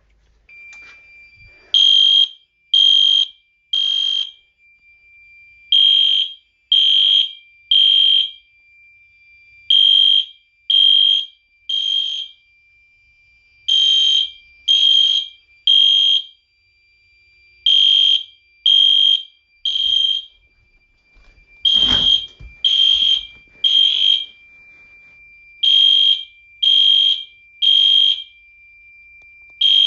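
EST ceiling-mount horn strobe sounding the temporal-3 evacuation pattern on a manual pull-station alarm: three short horn blasts about a second apart, then a pause, over and over. A steady high tone runs underneath, and there is a single thump about 22 seconds in.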